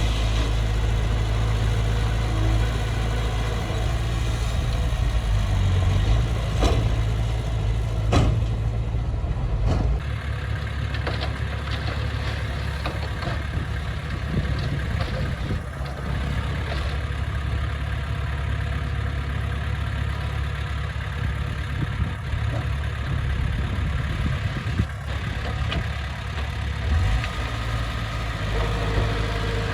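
Diesel engine of heavy earthmoving machinery running steadily with a low rumble, with a few sharp knocks and a change in the engine note about a third of the way in.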